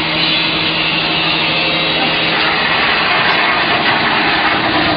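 Steady machinery noise: a motor or engine running continuously with a constant low hum under a dense even noise.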